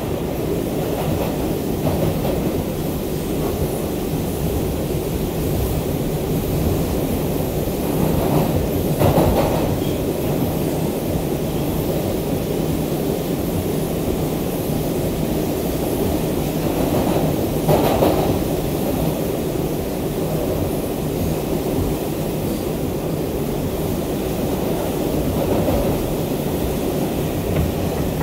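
R142 subway train running on the rails, heard from inside the car: a steady rumble of wheels and running gear, with two louder swells of rattle about a third and about two thirds of the way through.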